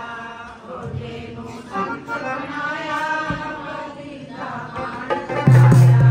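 Punjabi devotional chanting with harmonium accompaniment. About five and a half seconds in, a loud low harmonium note comes in with a few drum strikes from a dholki.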